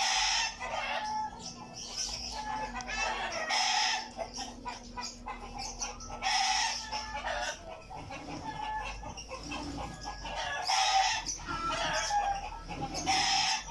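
Chickens clucking and a rooster crowing, with loud calls coming every second or two.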